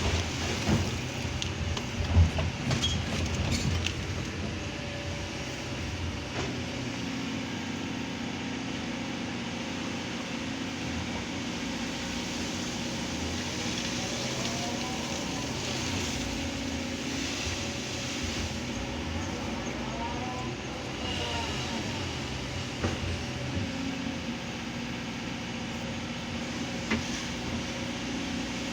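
Kobelco hydraulic excavator's diesel engine running steadily at working revs, with a few sharp clanks in the first few seconds and two brief whines that rise and fall midway.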